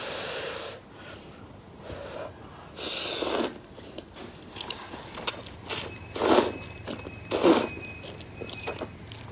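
Several short slurps of spicy instant noodles being sucked up, each about half a second long, with small clicks between them.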